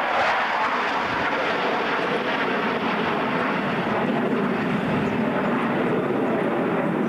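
Jet noise from four Sukhoi Su-27 fighters flying over in close formation, their twin AL-31F turbofans making a steady rushing sound that sinks lower in pitch as they pass.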